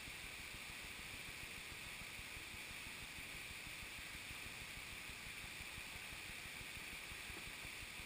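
Steady rush of flowing water from the stream and waterfall, even and unbroken.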